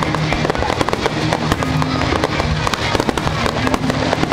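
A fireworks display going off thickly: many rapid, overlapping bangs and crackles from aerial shells and ground effects, with music playing underneath.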